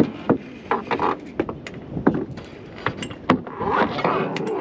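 Irregular clinks and knocks from sailboat rigging being worked on at the mast, with a longer rubbing rasp near the end.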